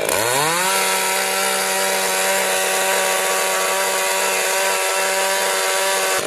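Pull-start chainsaw engine revved up: the pitch climbs quickly in the first half second, then holds steady at high revs, and cuts off suddenly near the end.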